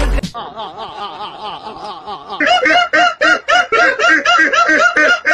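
A woman's high-pitched laughter: soft, stifled snickering at first, breaking into loud rhythmic laughing about halfway through.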